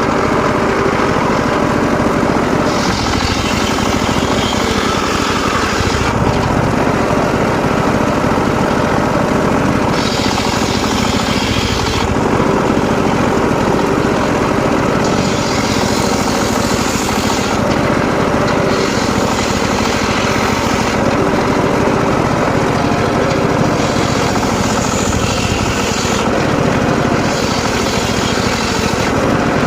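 Mobile engine-driven circular sawmill running and sawing mahogany: a steady, loud machine drone, with a harsher high-pitched cutting sound that comes and goes every few seconds.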